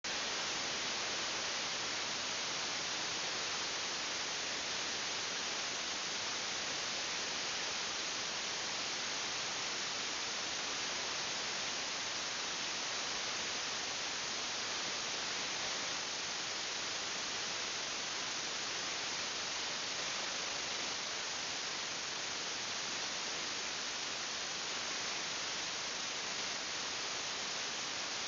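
Steady, even hiss of recording noise that does not change throughout, with no distinct sounds in it.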